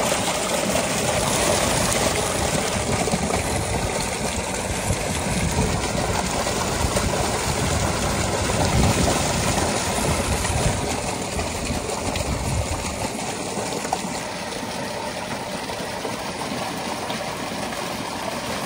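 Water gushing steadily from a tubewell's wide outlet pipe into a concrete tank, with turnips being rinsed by hand in the stream. The rush is heavier in the first two thirds and eases a little after that.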